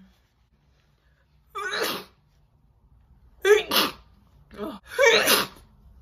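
A woman sneezing: a run of about five short, loud sneezes and gasping catches of breath, starting about a second and a half in and coming closer together toward the end.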